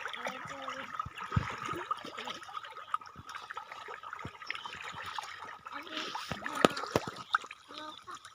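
Water trickling and splashing, with scattered short clicks and faint voices in the background.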